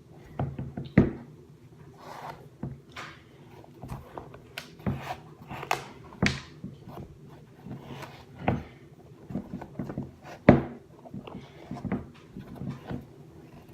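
Handling noise of footwear being pulled on: scattered knocks, taps and rubbing, with two sharper knocks about a second in and near ten and a half seconds, over a faint steady hum.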